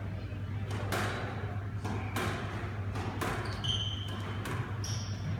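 Squash rally: the ball knocking off rackets and the court walls about every half second, each knock ringing briefly in the court. Two short high squeaks, typical of court shoes on the wooden floor, come in the second half, over a steady low hum.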